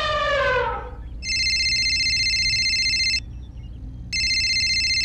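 Telephone ringing twice: a trilling ring lasting about two seconds, a pause of about a second, then a second ring.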